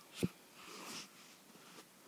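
A short thump about a quarter of a second in, followed by a soft breath near the microphone.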